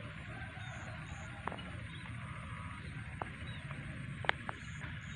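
Outdoor ambience: a steady low rumble with a few short sharp clicks, the loudest a little past four seconds in.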